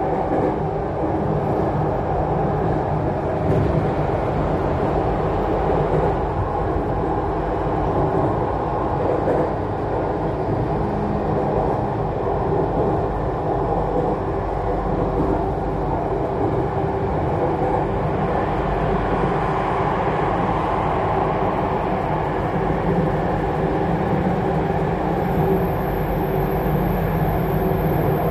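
MRT Jakarta electric train running at speed, heard from inside the carriage: a steady rumble of wheels on rail mixed with the hum of the traction motors. A thin, high whine joins near the end.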